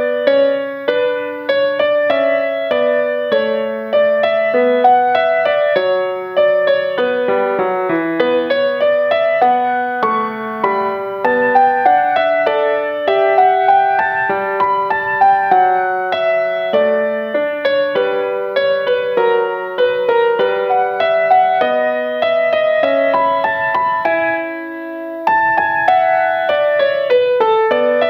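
Piano music: a melody of many short notes over an accompaniment, with a brief held chord and a dip in loudness about three-quarters of the way through.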